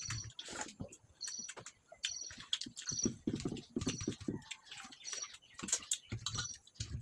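Close-up eating sounds: chewing and wet mouth smacks with small clicks and soft low thumps. A short high chirp repeats every second or so in the background.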